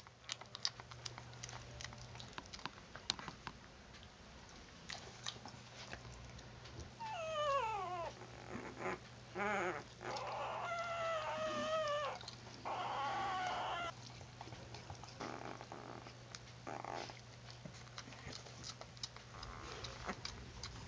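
Two-week-old puppies whimpering and whining: a falling squeal about seven seconds in, then wavering whines over the next several seconds. Small clicks run through the rest.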